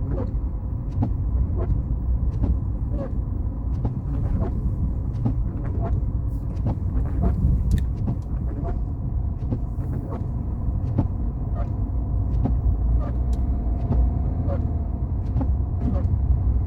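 Car driving: a steady low rumble of the moving vehicle, with short light knocks recurring unevenly, roughly once a second or a little faster.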